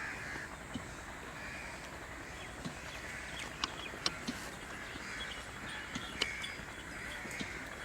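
Short, noisy animal calls repeating about every second or so over a steady background hiss, with a few sharp clicks in the middle.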